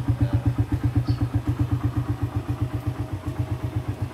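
Suzuki Raider R150's single-cylinder four-stroke engine idling with a steady, rapid train of exhaust pulses. The engine is still cold.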